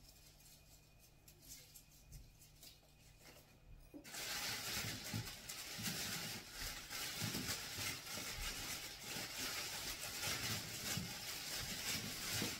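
Thin plastic bag rustling and crinkling as vegetables are handled in it, starting suddenly about four seconds in, with a few soft knocks of the produce.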